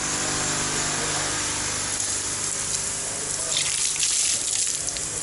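Water running out of a plastic pipe and splashing onto concrete in a steady rush, with a steady low motor hum underneath.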